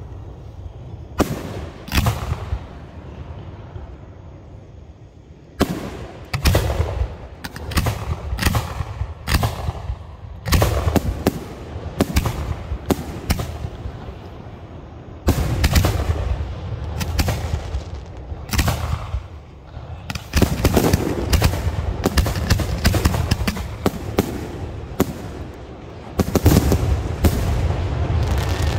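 Aerial fireworks shells bursting: a run of sharp booms and crackling bangs, sparse at first, then coming in clusters and, for the last several seconds, almost without a break.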